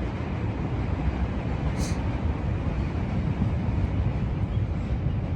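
Steady low rumble of vehicle noise with no words over it, and a brief high hiss about two seconds in.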